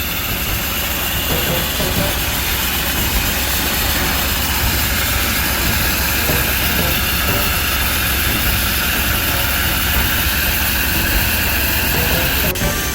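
Steady hiss of a high-pressure dry ice pellet blasting nozzle spraying into the fin coil of a running Atlas Copco screw compressor, over the compressor's low rumble.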